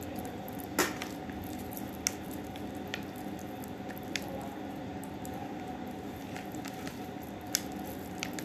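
Hands squishing and squeezing a wet stuffing mixture for mahshi, with a few sharp little clicks scattered through, over a steady low hum.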